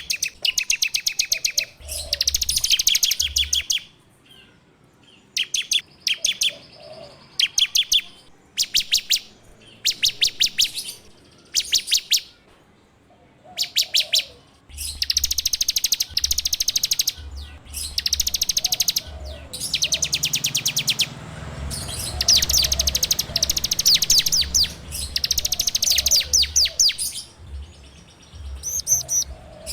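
Ciblek (a prinia) singing its rapid rattling 'ngebren' song: fast, dry trilled bursts repeated over and over with short pauses between them.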